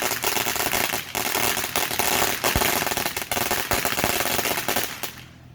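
A string of firecrackers going off in a rapid, continuous crackle of sharp pops that stops suddenly about five seconds in.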